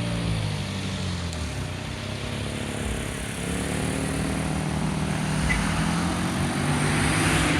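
Road vehicles passing the crossing: one engine falls away in pitch in the first second, then another car approaches with rising engine and tyre noise that peaks near the end.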